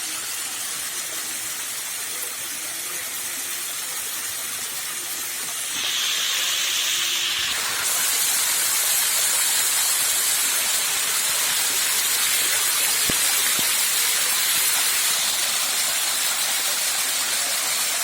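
Small rain-fed monsoon waterfall rushing, a steady hiss of falling water that grows louder and brighter about six seconds in and again about eight seconds in.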